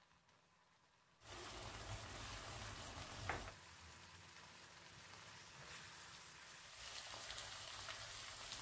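Cream sauce bubbling and sizzling in a frying pan on low heat, starting about a second in, with a short knock about three seconds in.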